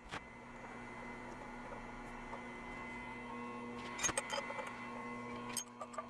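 Steady machine hum from the milling machine, with light metal clicks and knocks as the aluminium plate and clamp hardware are handled: one sharp click at the start, a cluster about four seconds in and another near the end.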